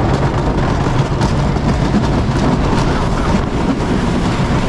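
Wooden roller coaster train running along its wooden track: a loud, steady rumble of the wheels, with a low hum that fades about three seconds in.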